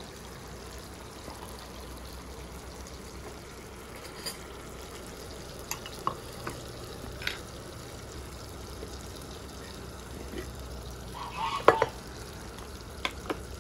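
Chopped cherry tomatoes frying in a pan on a gas hob, a low steady sizzle. Over it come scattered light clicks of olives and terracotta bowls being handled, and a louder knock and clatter near the end as a glass jar and its lid are picked up.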